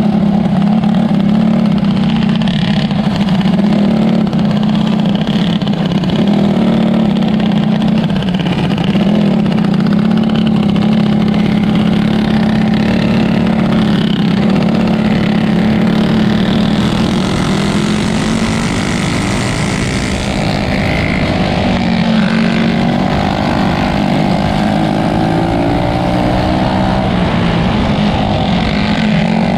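Winged outlaw racing kart's engine running hard and steady, heard onboard at full race speed. Other karts' engines rise and fall around it, most plainly in the second half.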